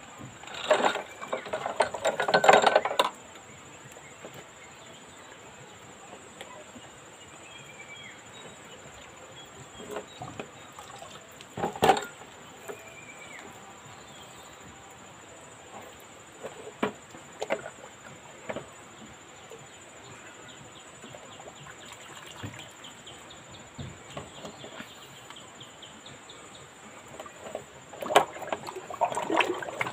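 Liquid splashing and sloshing in a plastic basin as an engine cylinder head is moved and scrubbed by hand in it, with a few sharp knocks of metal. The sound comes in bursts: a loud one at the start, a short one about twelve seconds in, and another near the end.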